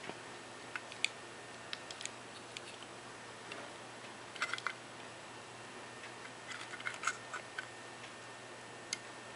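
Scattered light clicks and taps as a small robot car is picked up and handled, plastic and circuit board knocking against fingers. There is a quick cluster of clicks about four and a half seconds in and another around seven seconds.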